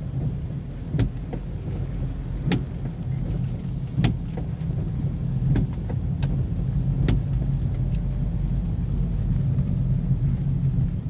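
Cabin sound of a Honda Civic driving slowly on a wet road: a steady low engine and tyre hum, with a knock from the windscreen wipers about every second and a half.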